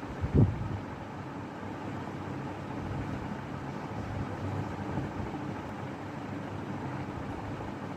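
Steady low background hum with a single short, low thump about half a second in.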